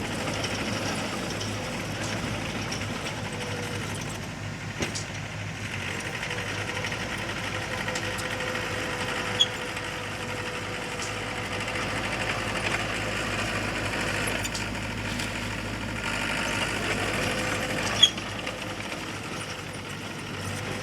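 Heavy earth-moving machinery's diesel engine running steadily, with three brief sharp knocks about five, nine and eighteen seconds in.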